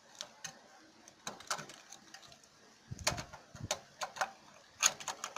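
Plastic air filter housing of a portable generator being handled and fitted back into place: scattered light clicks and knocks, a dull thump about three seconds in, and a sharp click near the end.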